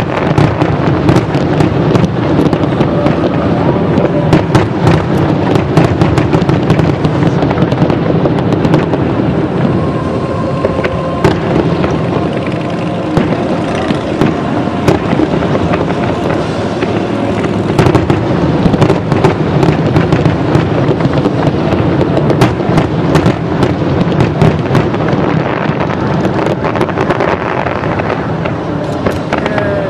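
Fireworks display going off in a rapid, unbroken barrage of bangs, pops and crackling bursts.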